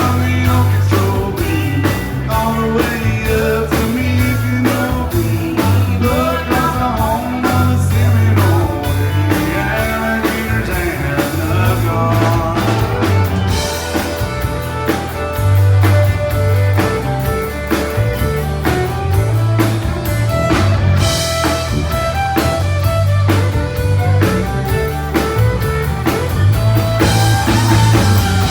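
A country band playing live: a singing voice over guitar, a pulsing bass and a steady drum-kit beat.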